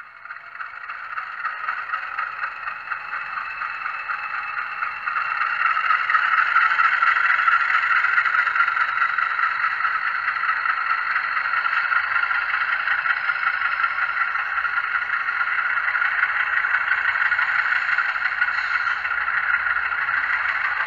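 A LokSound Select sound decoder in an HO-scale model GE U25B plays a diesel locomotive prime mover through the model's small speaker, being manually notched up to higher throttle. The engine sound swells over the first few seconds, steps up about five seconds in, then runs steadily.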